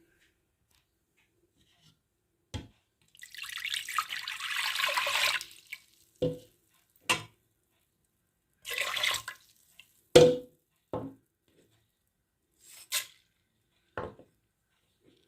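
Kitchen tap running in two short spurts, the first about two and a half seconds long, between scattered knocks and clicks of kitchen items; one knock about ten seconds in rings briefly.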